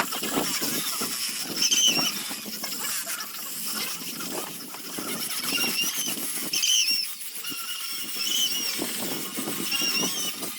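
Sandpaper scraping over zelkova wood in repeated rubbing strokes, with short high squeals that come back several times.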